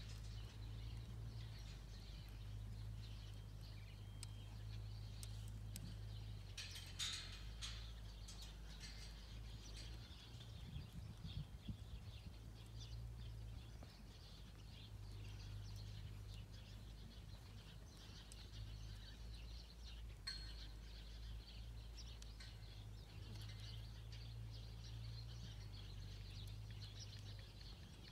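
Faint outdoor ambience: small birds chirping now and then over a low steady rumble, with a few soft clicks.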